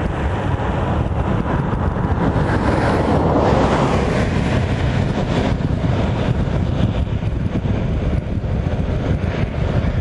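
A road vehicle passing, its noise swelling to a peak about three and a half seconds in and then fading, over a steady low rumble.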